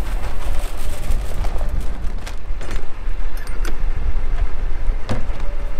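Corn seed poured from a bag into a plastic planter seed box, with a few sharp knocks from handling the box's lid. A steady low rumble of wind on the microphone runs underneath.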